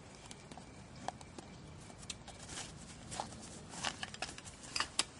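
Scattered small clicks and rustles of camping gear being handled, the loudest pair near the end.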